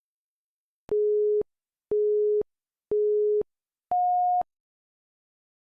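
Workout interval timer counting down: three short beeps at one pitch, a second apart, then a fourth, higher beep that marks the end of the interval.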